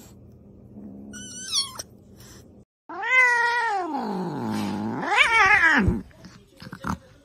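Two domestic cat calls. First a kitten gives a short high meow. Then a cat gives a long drawn-out yowl that falls in pitch, rises again and breaks off, an angry cat's call.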